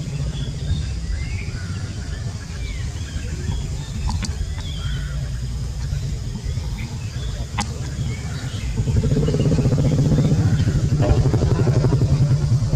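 An engine running with a steady low rumble that grows louder about nine seconds in and takes on a fast, even pulsing beat, as from an engine idling close by. Faint short high chirps sound over it.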